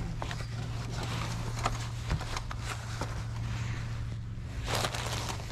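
Small clicks and taps of items being handled on a table, with a short rustle of plastic packaging near the end, over a steady low hum.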